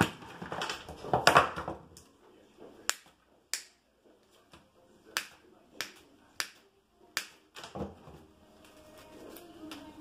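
Rustling and crackling of handled greenery and decorations, then a series of about seven sharp snips, roughly one a second, from pruning shears cutting the stems of glittery gold decorative sprigs.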